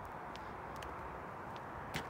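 Footsteps of a person walking: short, faint ticks about every half second, the sharpest just before the end, over a steady outdoor background noise.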